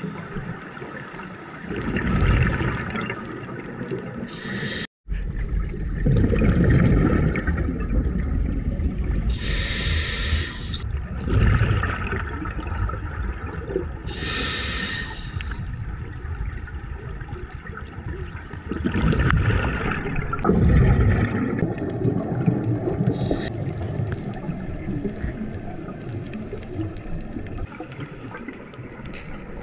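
Scuba regulator breathing underwater: hissing inhalations and the gurgling rush of exhaled bubbles, repeating every few seconds, with a brief break in the sound about five seconds in.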